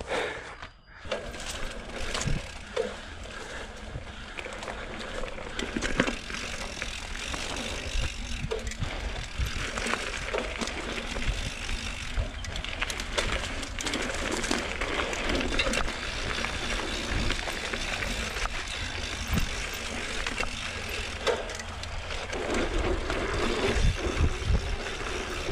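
Mountain bike riding over a dirt singletrack trail: steady tyre and drivetrain noise with frequent small rattles and knocks as the bike rolls over roots.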